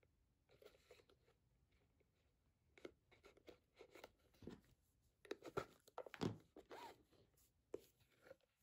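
Faint, irregular rustling and scraping of thread being pulled through stitching holes in leather as a seam is hand-stitched with a needle, busiest about halfway through.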